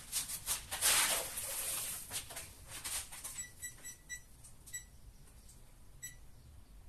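Rustling and scraping of work movement, then about half a dozen short, high-pitched beeps at uneven intervals from a green line laser level being set up.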